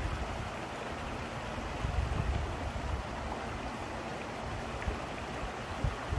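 Shallow stream water running steadily over rocks, with an uneven low rumble underneath and a short knock near the end.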